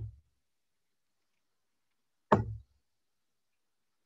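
A steel-tip dart striking a Winmau Blade bristle dartboard: a single sharp thud about two and a half seconds in, with the tail of the previous dart's hit right at the start.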